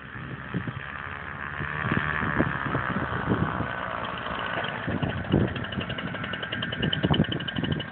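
Paramotor engine and propeller mounted on a Citroën 2CV, running steadily and growing louder over the first couple of seconds as the car drives up and passes close by, with low thumps mixed in.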